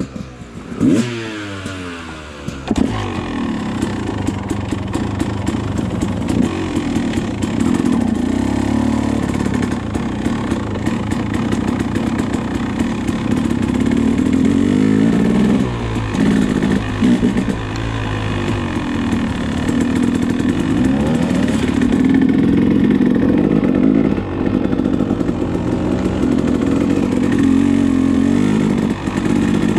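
Dirt bike engine being ridden, its revs climbing and falling over and over with throttle and gear changes, with a sharp rev-up about a second in and several quick drops in pitch midway.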